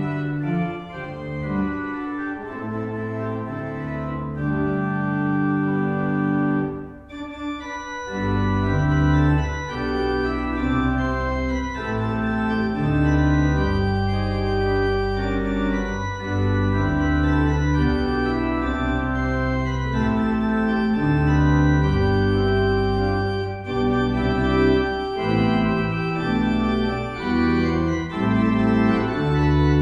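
Church organ playing slow, sustained chords. After a brief lull about seven seconds in, a deep pedal bass joins the chords.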